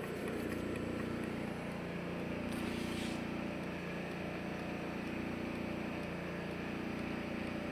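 AMI 307 orbital welding machine running during a function test of its 9-4500 weld head: a steady electrical hum, with a brief hiss about two and a half seconds in.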